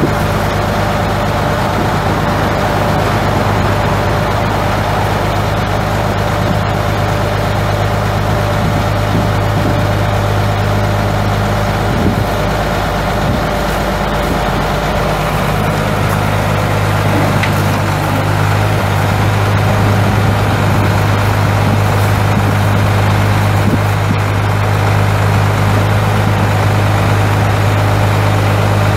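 Cummins ISC 8.3-litre inline-six turbo diesel of a Ford L8000 dump truck idling steadily.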